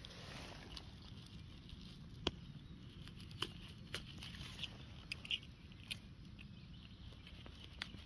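Faint handling sounds in dry leaf litter and moss: a few scattered sharp clicks and light crackles as a pocket knife is worked around the base of a morel to cut it.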